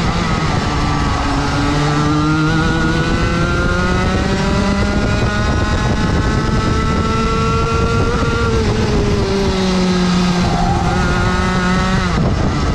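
Rotax Max 125cc two-stroke kart engine at racing speed, heard from the driver's seat. Its note dips at the start, climbs steadily for about eight seconds as the kart accelerates down a straight, eases off, then drops sharply near the end as the driver brakes for a corner.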